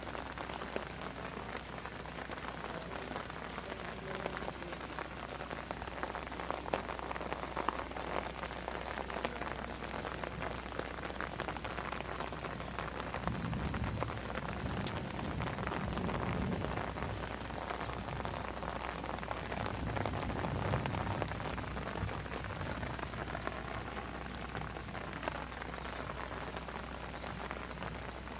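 Steady rain falling, with a dense patter of small drop ticks, and a few low muffled bumps about halfway through.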